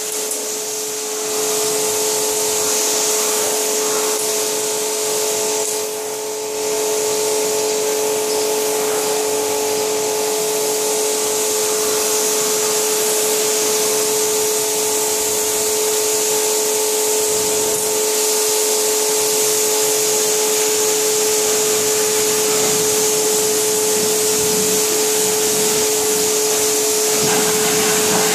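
Kärcher 140-bar electric pressure washer running under load: a steady motor-pump whine with the hiss of the high-pressure water jet rinsing foam off car bodywork, dipping briefly about six seconds in.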